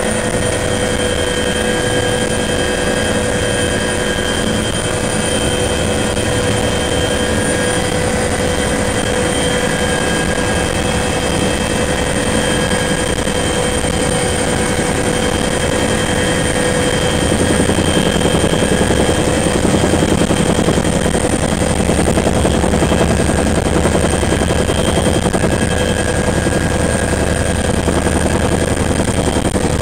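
Bell 212 helicopter heard from inside the cockpit: the steady whine of its twin turboshaft engines over the dense beat of the rotor and gearbox. A little over halfway through, the low rotor noise grows louder as the helicopter manoeuvres on its approach to land.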